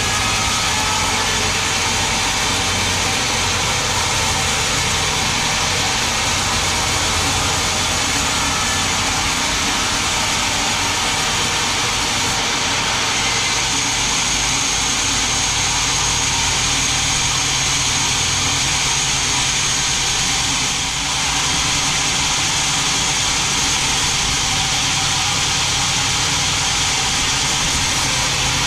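Large sawmill band saw running and cutting lengthwise through a big mahogany log: a steady, loud rush of the blade in the wood over a low motor hum, with a high whine standing out in the middle stretch.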